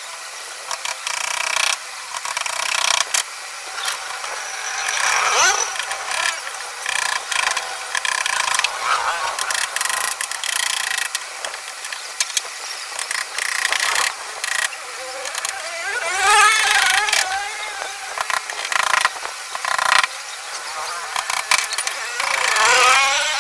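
Repeated hammer taps on a softwood lattice door frame as its joints are worked. A few short wavering squeaks come in between, about a third of the way in, again past the middle, and near the end.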